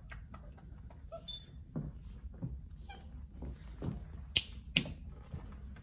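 Basset hound puppy giving a few short, high-pitched whimpers, with two sharp clicks a fraction of a second apart about four seconds in.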